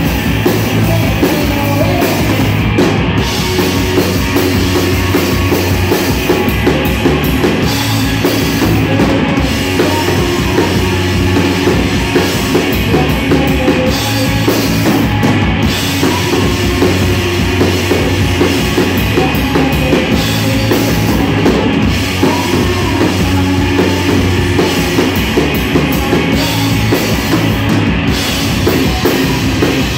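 Live rock band playing loud, with electric guitars over a full drum kit.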